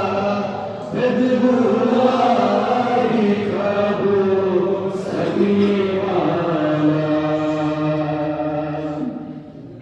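A voice chanting a devotional Urdu qasida in praise of Ali, holding long drawn-out notes that slide from pitch to pitch. It breaks briefly about a second in and drops away near the end.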